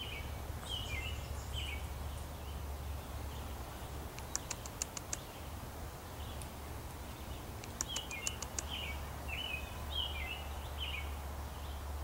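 Woodland birds chirping: clusters of short downward-slurred notes, with two brief runs of fast high ticking about four and eight seconds in, over a low steady rumble.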